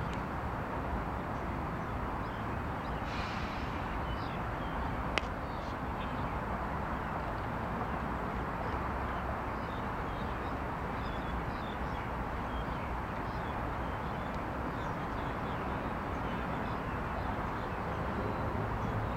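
Steady outdoor background noise with a single sharp crack about five seconds in.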